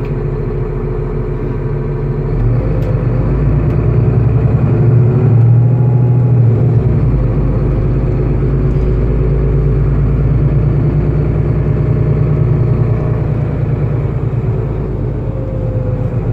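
Solaris city bus heard from inside while driving: a steady low engine and drivetrain hum with road noise, growing louder a couple of seconds in and with the engine note bending up and down.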